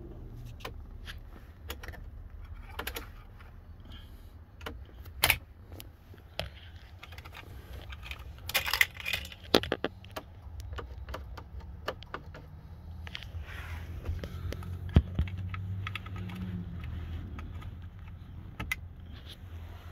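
A bunch of keys jangling and clicking as they are handled, with sharp clicks about five and fifteen seconds in and the loudest jingling about nine seconds in. A faint steady low hum lies underneath.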